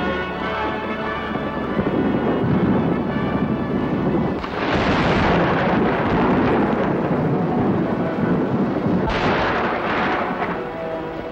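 Newsreel soundtrack of an atomic bomb explosion: a dubbed, thunder-like rumble under sustained background music, with two louder blasts about four and a half and nine seconds in.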